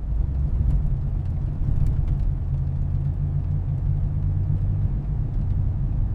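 A 1975 BMW E12's engine running steadily with a low rumble.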